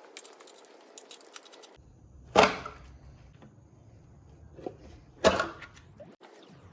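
Two loud, sharp knocks about three seconds apart, the first about two and a half seconds in, each with a short ring, and a few lighter clicks between them.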